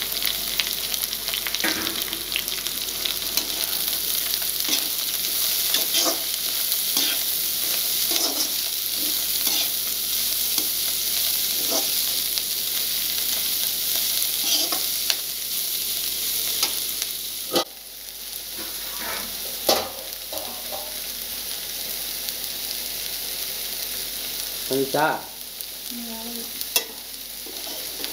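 Chopped vegetables sizzling as they are stir-fried in a metal kadai, with a spatula scraping and tapping against the pan. About two-thirds of the way through, the sound drops off abruptly. A quieter sizzle follows, with a few sharp knocks of a utensil against the pot.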